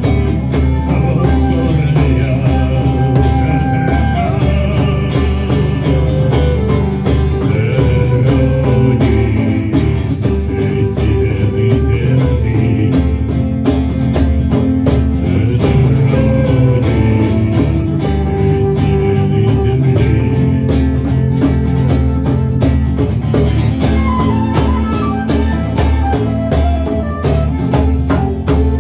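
A band playing a song live: guitars over a steady beat.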